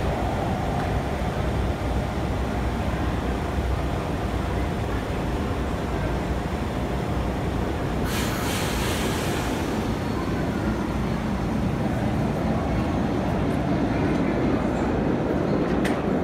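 1980 Kawasaki LRV subway-surface trolley standing at an underground platform, its onboard equipment giving a steady low rumble and hum. About eight seconds in, a sharp hiss starts and fades out over about two seconds.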